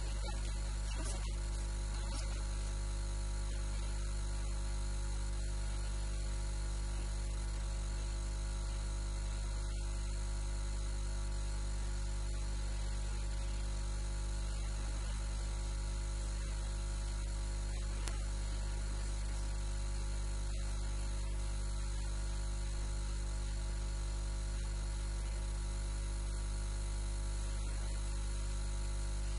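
Steady electrical mains hum and buzz with many even overtones, unchanging throughout, strongest in the low bass.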